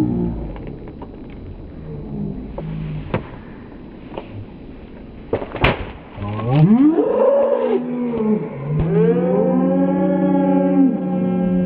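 Rubber-banded watermelon bursting open under the pressure of the bands with one sharp crack about halfway through, after a few small snaps. Sliding, wavering pitched tones follow the burst.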